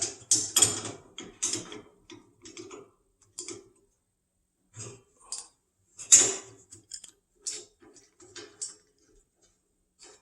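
Irregular metallic clicks and clatters of a garage door opener chain and its master link being worked apart by hand, busiest in the first second or two and again about six seconds in.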